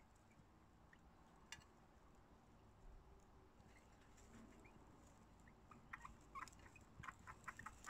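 Newborn chinchilla kits squeaking: faint, short high chirps that begin about six seconds in and quicken to a rapid run of several a second near the end, over near silence. There is a single faint click earlier.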